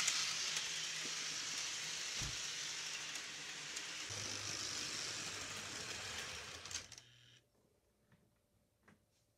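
Model train running on its track: a steady hiss with a faint low hum underneath, cutting off abruptly about seven seconds in.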